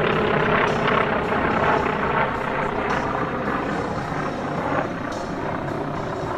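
Radial piston engines of T-28 Trojan trainers droning overhead, loudest at the start and slowly fading.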